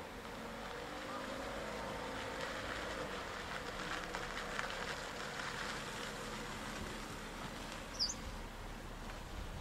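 A distant motor vehicle passing: a low engine hum that swells to a peak midway and fades again. A single short high chirp sounds near the end.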